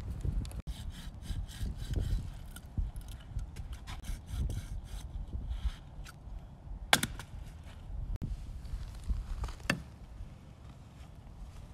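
A large bushcraft knife working wood: a run of quick, repeated scraping strokes for several seconds, then two sharp wooden knocks about three seconds apart.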